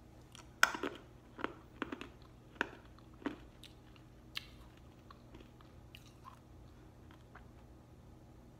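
Hard Runts candy crunched between the teeth: a string of sharp crunches in the first four and a half seconds, the first the loudest, then fainter chewing clicks.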